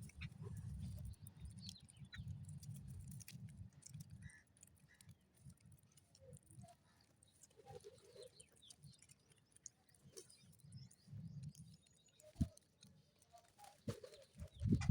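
Birds feeding on a rooftop: scattered short calls and chirps with light taps. A low rumble fills the first few seconds, and two sharp knocks come near the end.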